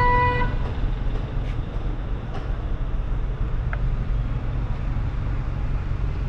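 A short electronic beep, then the Jeep Compass's engine running with a steady low rumble.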